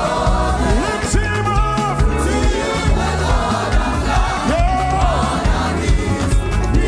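Live African gospel praise music: voices singing gliding lines over a band, with a moving bass line and drums keeping a steady beat.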